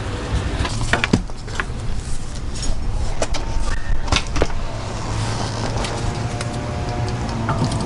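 Scattered metal clinks and knocks from hand tools and shock-absorber parts being handled during assembly, over a steady low hum.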